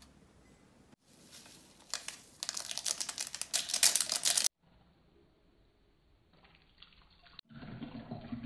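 A plastic sachet crinkling and tearing open in the hand, a loud crackle of sharp clicks for a few seconds. Near the end, water starts pouring from a kettle into a ceramic mug.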